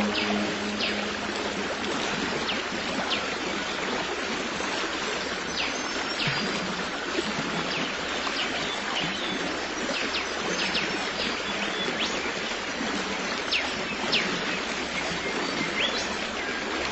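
Stream water running steadily, with many short, high bird chirps scattered throughout.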